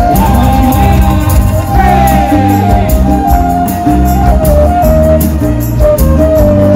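Live band playing an instrumental passage of a Malay-style pop song: violins carry a sustained, stepping melody with a sliding fall about two seconds in, over bass, guitar and steady percussion.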